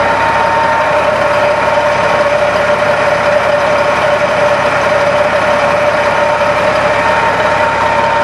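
Norkot 9100 horizontal grinder's Caterpillar 3406 inline-six diesel running steadily, with a steady two-note whine over the engine noise.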